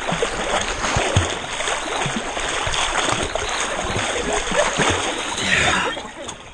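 Lake water splashing and sloshing close to the microphone as a swimmer strokes through it, steady and irregular, growing quieter near the end.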